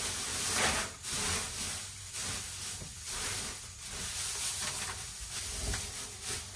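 Dry straw bedding rustling and scratching as it is pushed and spread by gloved hands over the plastic floor of an IBC-tote coop, in a run of irregular strokes.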